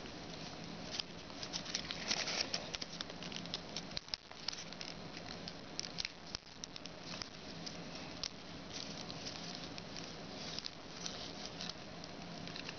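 Paper being folded and creased by hand: faint rustling with many small crackles and taps.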